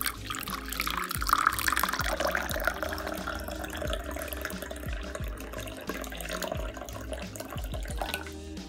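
Water being poured in a steady stream into a glass cup, splashing as the cup fills, until the pour stops near the end.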